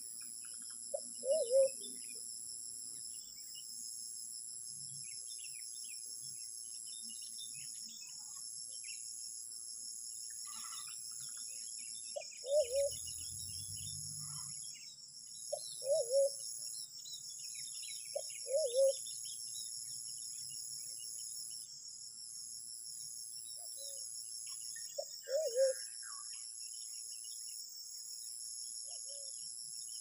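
A pigeon cooing, short low two-part coos repeated about half a dozen times at irregular intervals, over a steady high drone of insects.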